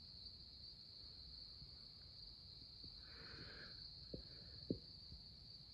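Faint, steady, high-pitched chorus of night insects trilling in the woods. A few soft clicks come about four and five seconds in.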